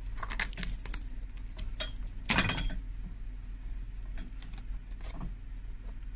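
Hands handling a leather shoe whose sole has been removed, fingers scraping and picking along the welt: small scrapes and clicks, with one louder knock a little over two seconds in, over a steady low hum.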